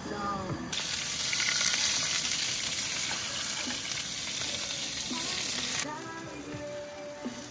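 Pork ribs sizzling hard in a hot frying pan on a propane camp stove. The sizzle starts suddenly about a second in and cuts off abruptly near the end.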